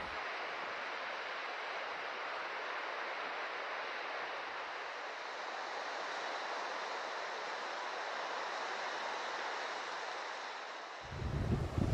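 Steady rushing of sea surf, an even hiss with almost no low rumble.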